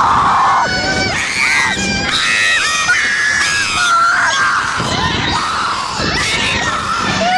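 Several young riders screaming and shrieking together on an amusement ride, with overlapping, wavering high-pitched screams throughout.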